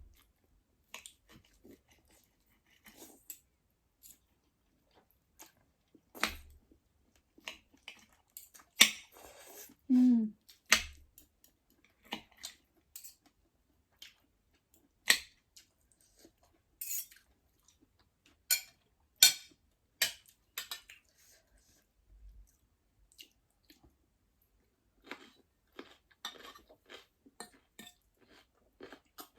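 Close-up eating sounds from a bowl of ramen: scattered chewing and mouth noises with sharp clicks of utensils against the bowl, coming in irregular bursts with gaps between.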